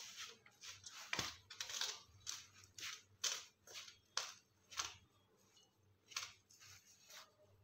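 A hand mixing dry grated radish, chopped radish leaves and wheat flour in a steel bowl: soft, quick rustling crunches, several a second at first, thinning out after about five seconds.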